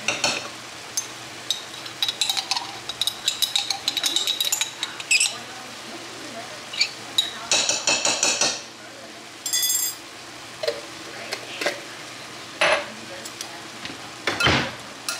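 Kitchen work: utensils clinking and knocking against dishes and pans in an irregular run of sharp strikes, with one short ringing clink about ten seconds in.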